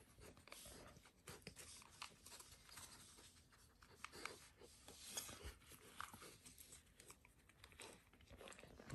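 Near silence, with a few faint, short rustles and clicks about four, five and six seconds in.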